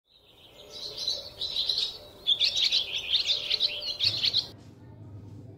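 Birds chirping in a dense, rapid twittering chatter that stops abruptly about four and a half seconds in, leaving a faint low hum.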